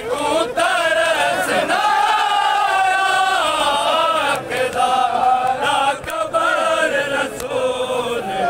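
Group of men chanting a vain, a Shia lament for Hazrat Fatima, together in a long, wavering melodic line.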